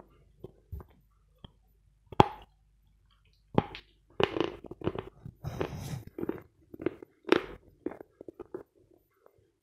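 A piece of a chalk bar is bitten off with one sharp snap about two seconds in. Crunchy, irregular chewing of the hard, dry-crunching chalk follows and trails off near the end.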